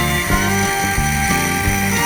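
Background music with a steady beat and plucked-guitar-like notes.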